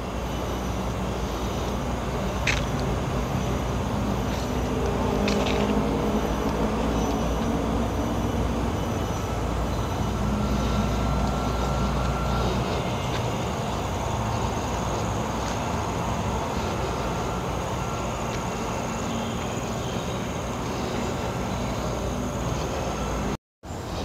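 Steady road traffic noise: a low rumble with a faint engine hum that swells a few seconds in, and the deepest rumble eases after about halfway. The sound cuts out briefly near the end.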